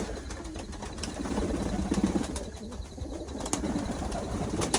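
Domestic pigeons cooing, with a few light clicks or knocks.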